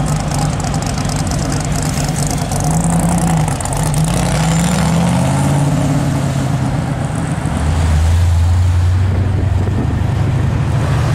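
V8 car engines running and revving as cars pull away, the engine note rising and falling, then settling into a deep, steady note that is loudest about eight seconds in.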